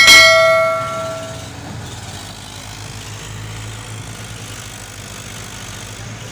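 A bell chime sound effect rings out at the start and fades over about a second and a half, followed by a tractor engine running steadily.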